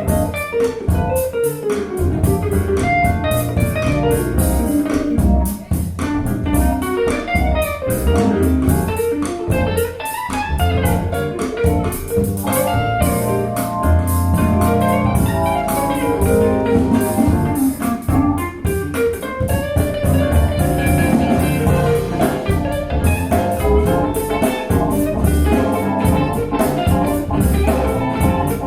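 Instrumental music with plucked guitar and drums, played through a JBL Studio 590 floorstanding loudspeaker in a furnished room.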